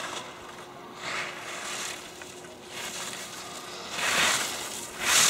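Slalom racer's skis scraping and carving on hard-packed snow, a hiss with each turn about once a second, getting louder near the end as the skier closes in.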